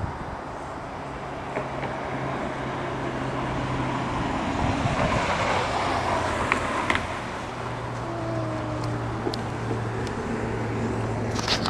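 Car engine hum and road traffic noise, swelling for a couple of seconds about five seconds in.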